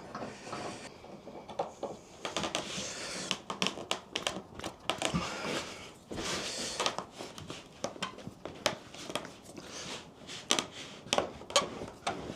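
Adjustable spanner clicking and scraping against the metal jaw of a Stanley 702 corner vise in an irregular run of small knocks and rattles, as the bent jaw is levered back toward square.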